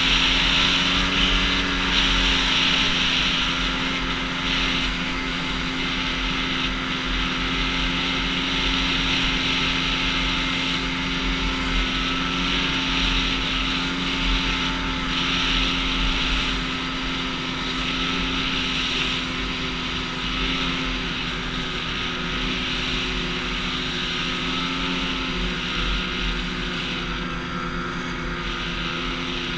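Snowmobile engine running at a steady cruising speed while the sled travels over packed snow, a constant engine hum under an even hiss.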